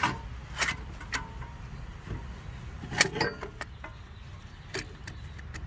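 Handling of tools and brake parts: a string of short, irregular clicks and light taps, the sharpest about three seconds in, over a steady low hum.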